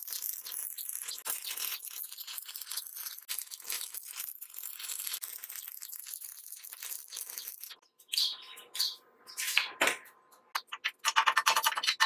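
Stick (arc) welding: the electrode's arc crackles and sizzles steadily, then stops about eight seconds in. A few sharp metal knocks follow, then a quick run of clinks near the end.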